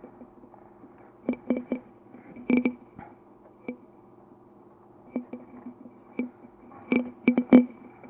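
Sharp metallic clicks and taps in three quick clusters, with scattered single ticks between them. Each tap rings briefly at the same pitches, over a faint steady low hum. The sound is of hands and tools working on the metal parts of an opened electric room heater.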